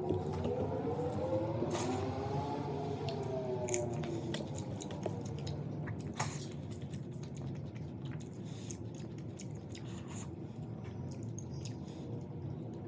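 Close-up eating sounds: wet chewing and squishing of boiled fish and bamboo shoots, with a few sharp clicks. A faint pitched tone rises and falls over the first few seconds.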